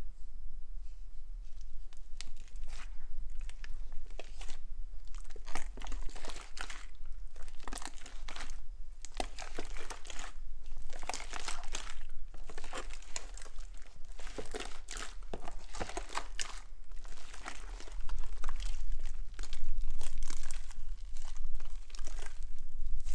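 Hands kneading and folding a large batch of slime mixed with foam beads, an irregular run of wet crackles and squelches that grows louder near the end.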